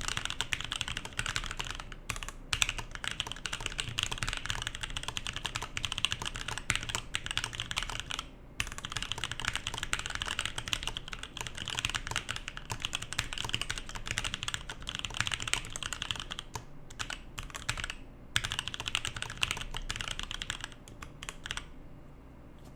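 Fast typing on a DNA59 50% ortholinear mechanical keyboard with lubed Gateron Brown tactile switches and DSA keycaps: a dense run of keystrokes. It pauses briefly about eight seconds in and stops shortly before the end.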